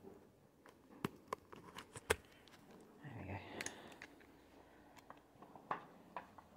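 Faint scattered clicks and taps, the sharpest about a second and two seconds in, with a soft rustle a little after three seconds.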